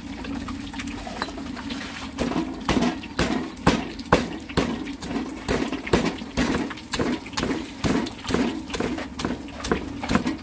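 Steady knocking, about two sharp strikes a second, starting about two seconds in.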